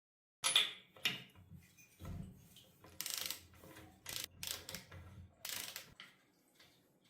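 Hand tools working on a Piaggio scooter engine's metal casing: a string of clicks and knocks with short scraping bursts in between, starting about half a second in.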